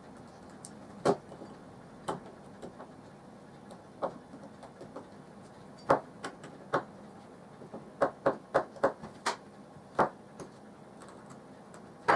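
Irregular sharp clicks and taps of a knife blade worked against the edge of a thin plastic plate on a tabletop, with a quick run of about six clicks about eight seconds in.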